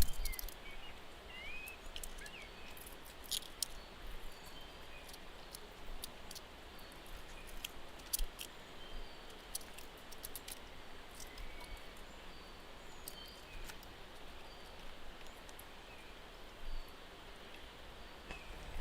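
Outdoor ambience: a steady hiss with faint, brief high bird chirps and many scattered sharp clicks and ticks.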